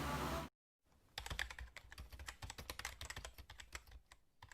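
A steady electronic hiss and hum that cuts off abruptly about half a second in, then a quick, irregular run of light clicks and taps that thins out near the end.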